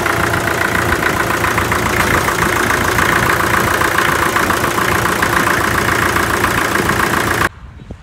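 Vintage tractor engine running steadily and loudly at close range, with a fast even beat. About seven and a half seconds in it cuts off abruptly to a much quieter outdoor background.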